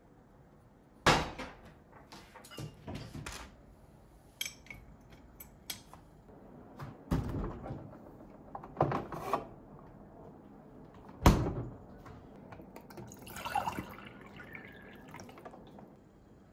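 Ceramic mugs and bowls being lifted off a dish drying rack and put away into kitchen cabinets: scattered knocks and clinks of crockery, with two sharp knocks about a second in and about eleven seconds in. Near the end comes a brief run of water, as into a drinking glass.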